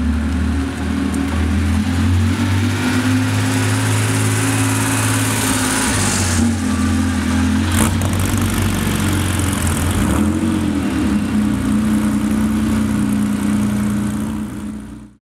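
Air-cooled 3.2-litre flat-six of a 1985 Porsche 911 running steadily at a low, even pitch, with a brief rise and fall in engine speed about ten seconds in; the sound fades near the end.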